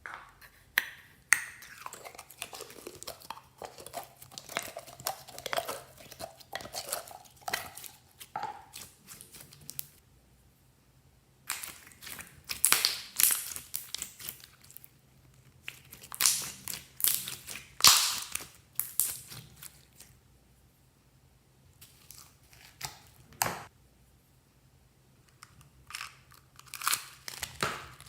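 Slime being squeezed and pressed by hand, making bursts of crackling, clicking squishes with a couple of short pauses.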